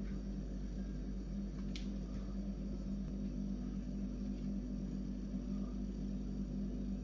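A steady low hum with one faint click about two seconds in.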